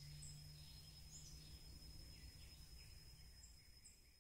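Near silence: faint outdoor ambience with a few short bird chirps over a steady high tone and low hum, fading out near the end.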